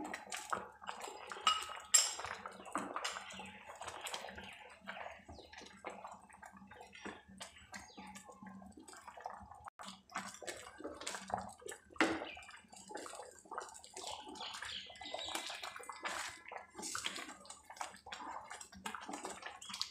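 Thick barley-and-milk porridge bubbling in a kadai with irregular small pops and splashes, while a spatula stirs through it and scrapes against the pan. A few louder knocks stand out, about two seconds in and again near twelve seconds.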